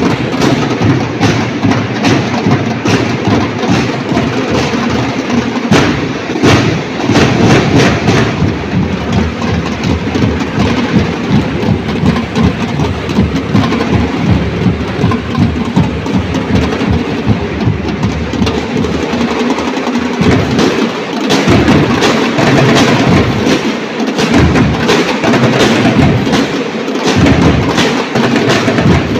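Drum and lyre corps drumline playing: large bass drums and snare drums beating fast and loud in a continuous dense rhythm.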